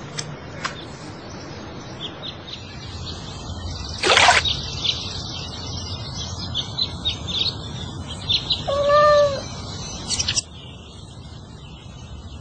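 Birds chirping over a steady background hum, with a brief loud burst of noise about four seconds in and a single cat meow about nine seconds in.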